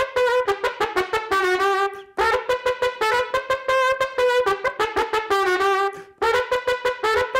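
Mariachi trumpet playing alone: runs of quick, crisply tongued notes with vibrato on the longer ones, broken by short pauses about two and six seconds in.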